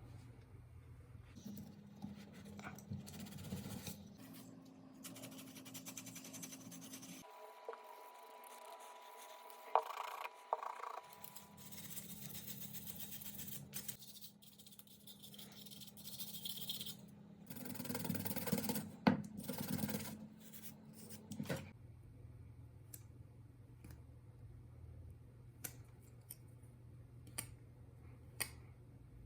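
Small clicks, scraping and rubbing from hands and tools handling a laptop's plastic casing and parts, with two louder stretches of scraping partway through.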